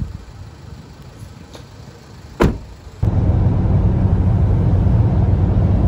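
A car door slams shut once, sharply, about two and a half seconds in. From about three seconds a car is heard driving from inside the cabin: a steady low road and engine noise.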